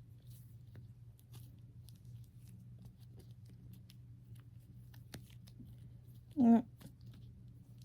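Slime being handled and squished: faint sticky clicks and crackles over a low steady hum, with one short, loud pitched sound about six and a half seconds in.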